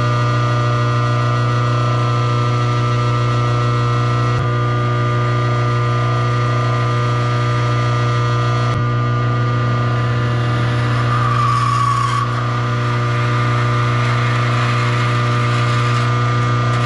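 Metal lathe running with a steady motor and gear hum while a drill or boring tool cuts into the inside of a steel workpiece. The sound shifts abruptly a few times, and a brief higher squeal with a rougher cutting noise comes about two thirds through.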